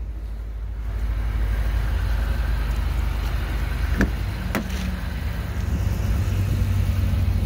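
Steady low hum of a car, the Infiniti Q50's 3.0-litre turbo V6 idling, with two sharp clicks about four seconds in as the driver's door is unlatched and swung open.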